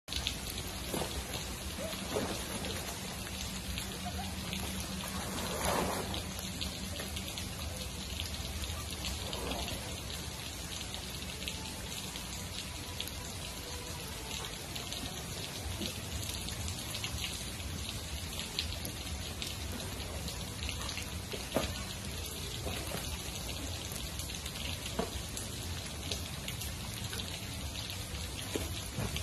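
Steady rain falling, with many small raindrop ticks on wet ground and hard surfaces; a faint low hum runs under it for the first nine seconds or so.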